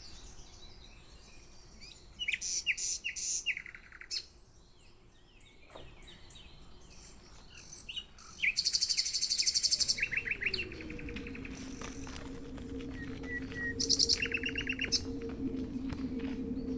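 Small birds chirping and trilling in several separate bursts of rapid, repeated high calls. About ten seconds in, a steady low hum with two tones sets in after a short downward slide and continues under the calls.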